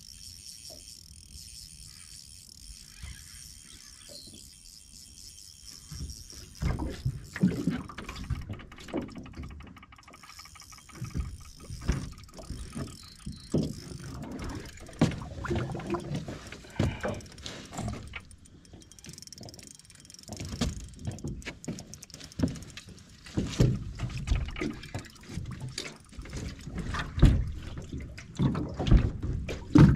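Irregular low knocks and thumps on an aluminum boat, mixed with water sounds, while a bass is reeled in and landed over the side. These begin a few seconds in after a stretch with only a faint hiss.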